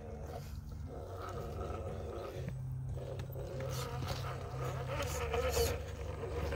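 Electric motor and gear drivetrain of a 1/10-scale RC rock crawler whining as it crawls over wet rock, getting louder as the truck comes closer.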